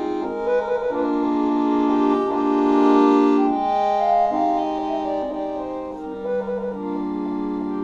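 Solo piano accordion playing a classical piece: long held chords under a melody line, swelling louder about three seconds in.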